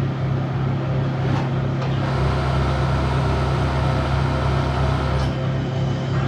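Steady low machine hum, with a deeper drone that swells from about two seconds in and drops back about five seconds in.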